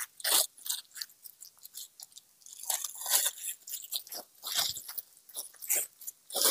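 Hands scooping dry manure out of a plastic bag and scattering it onto loose soil: irregular short crunching and rustling scrapes.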